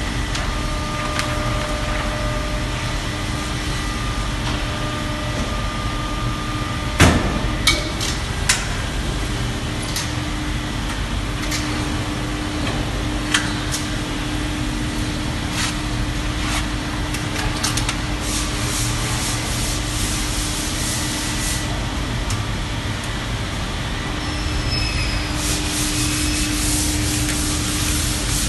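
Vacuum membrane press running with a steady hum, with a few sharp knocks about seven to nine seconds in and stretches of hissing air later on.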